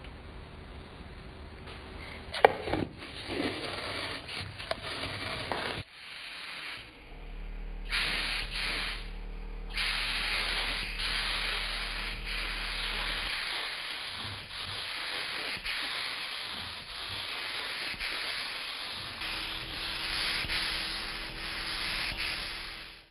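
Hiss of a paint spray gun spraying, in short bursts at first and then held fairly steadily for the last dozen seconds or so. There is a sharp click about two and a half seconds in.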